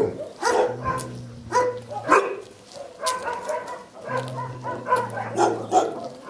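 Shelter dogs barking from their kennel runs, short barks coming every half second or so, with a low steady hum coming in twice.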